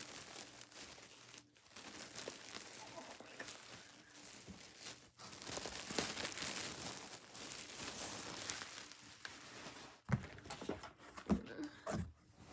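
Packaging crinkling and rustling as a fursuit head is unwrapped from its box, loudest in the middle, then a few knocks near the end as it is handled.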